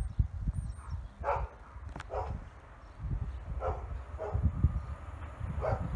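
A dog barking, about five short barks spaced over a few seconds, over the low rumble of wind on the microphone.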